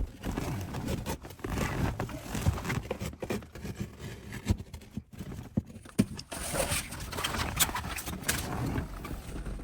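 Irregular light knocks, taps and scraping rustles from headliner material and its fittings being handled and pulled into place inside a car's cabin.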